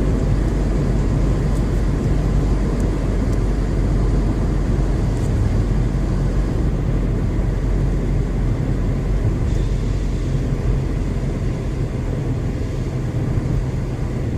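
Car engine and road noise heard from inside the cabin while driving, a steady low drone. The driver says it shouldn't sound like that.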